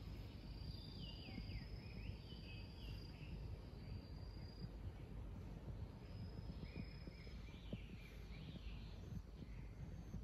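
Faint outdoor ambience of insects from the trees: a steady high-pitched buzz, with a run of falling chirping phrases about a second in and another near seven seconds, over a low rumble.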